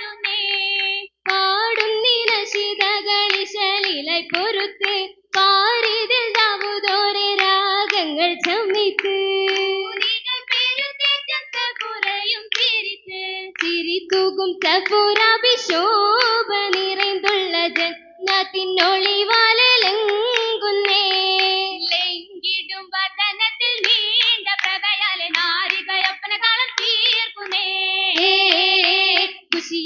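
Girls' voices singing an Oppana song (Mappila song) in chorus, with the dancers' rhythmic hand clapping running through the singing.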